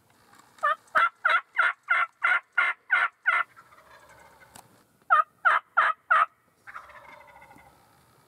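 Loud turkey yelps in an even string of about three a second: ten in a row, a short pause, then four more. A quieter, rougher call follows near the end.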